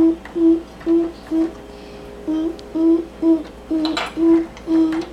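A child humming short, repeated notes at one steady pitch, about two a second, with a short break about a second and a half in. A couple of light clicks come near the end.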